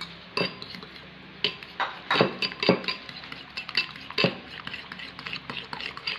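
Utensil clinking against a bowl while the egg mixture is stirred, with a few firmer knocks in the first half and quicker, lighter taps after.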